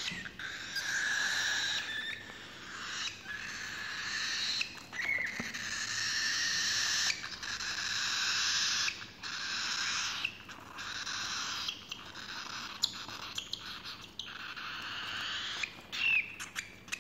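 Cockatiel chicks giving harsh, wheezing begging calls in runs of a second or two with short breaks, the food-begging of chicks being hand-fed formula from a syringe.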